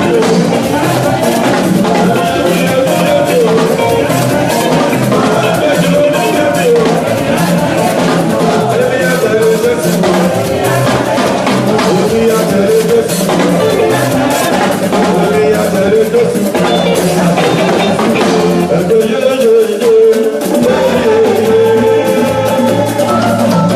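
Loud live band music with a drum kit and percussion keeping a steady, busy beat under a melody line.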